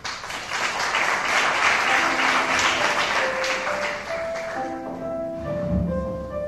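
Audience applauding, dying away after about four seconds as a piano begins a slow melody of single notes.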